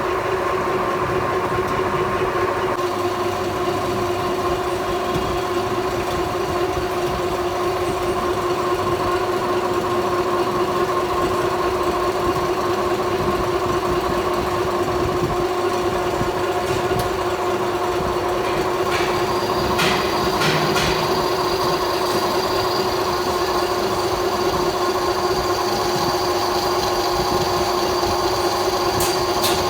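Metal lathe running steadily with a constant hum and rattle, with a few light clicks about two-thirds of the way in and near the end.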